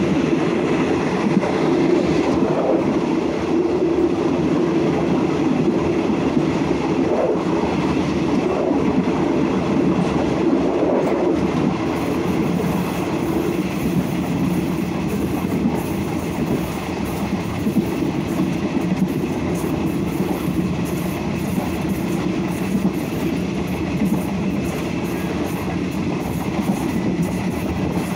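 Passenger train rolling along the track, heard from the rear of the last coach: a steady rumble of wheels on rails with the rattle of the moving coach.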